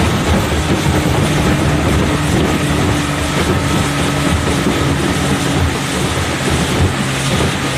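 Small motorboat's engine running steadily at cruising speed, with a rushing wash of wind and water over it.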